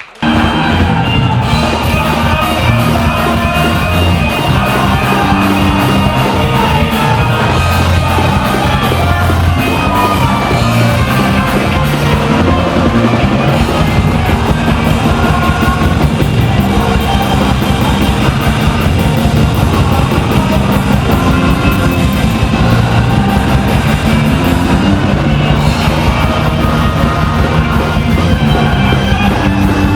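A live rock band plays loudly with vocals. It starts abruptly just after a brief drop in the sound.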